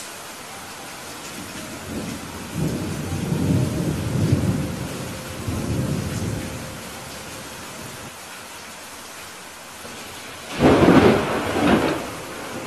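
Thunderstorm: steady rain hiss with thunder, a rolling rumble from about two seconds in that fades out around seven seconds, then a louder, sharper clap of thunder near the end.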